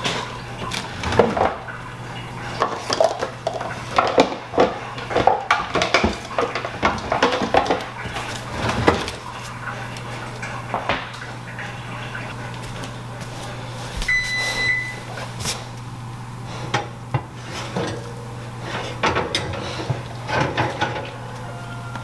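Kitchen clatter: knocks and scrapes of a pie dish and oven rack being handled at the oven, busiest in the first half. About fourteen seconds in, a single electronic beep lasting about a second and a half, over a steady low hum.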